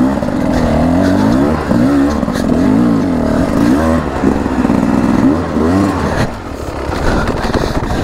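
2023 Beta RR300 two-stroke enduro bike engine revving up and down over and over as the throttle is worked on rough ground. It eases off and runs quieter for the last couple of seconds.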